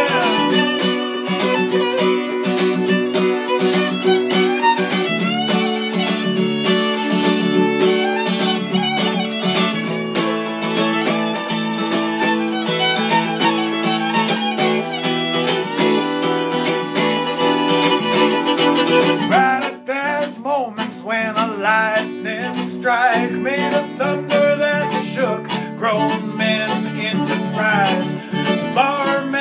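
Fiddle and strummed acoustic guitar playing an instrumental break together. About twenty seconds in the playing thins for a moment, then the fiddle carries on with sliding, wavering notes over the guitar.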